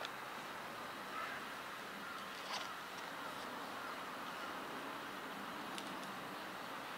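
Faint outdoor background: a steady hiss with a few distant bird calls and occasional faint clicks.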